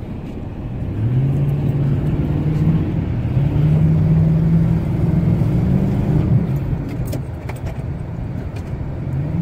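Ford F-150 engine revving up about a second in and held at raised revs with small swings, then dropping back after about six seconds, heard from inside the cab. The truck is stuck in deep snow and being driven to try to get free.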